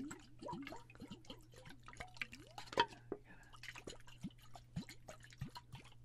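Water sloshing and glugging inside a clear bottle turned back and forth close to the microphone, with many quick bubbly plops and small drip-like clicks, the loudest a little before halfway.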